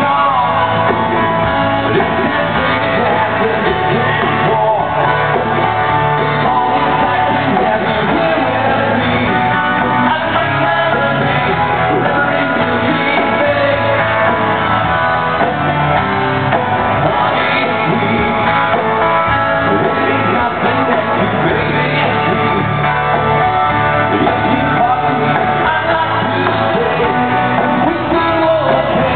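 Live rock band playing a song, with electric guitar and a singer.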